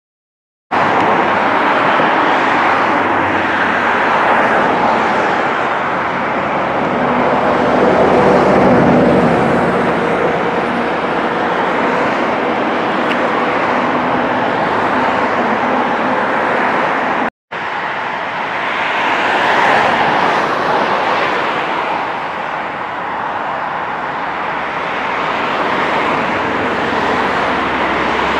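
Steady jet noise from airliners at an airport, swelling a little twice. There is a short break about seventeen seconds in.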